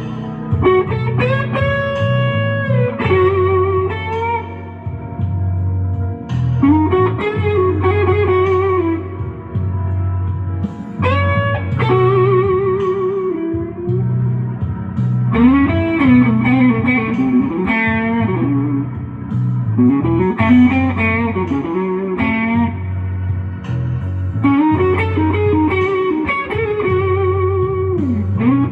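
Slow blues played on electric guitar: a lead line of bent notes and wide vibrato over a steady bass line.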